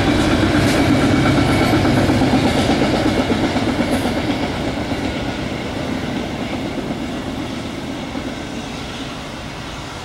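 CSX double-stack intermodal freight train's cars rolling past on the rails with a steady rumble, growing fainter over the second half as the train draws away.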